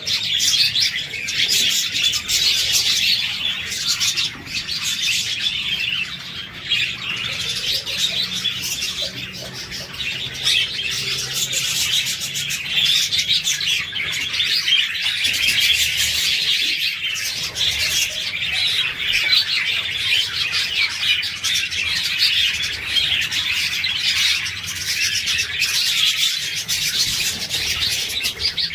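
A flock of budgerigars chattering: many short chirps and warbles overlapping in a continuous, busy stream with no pauses.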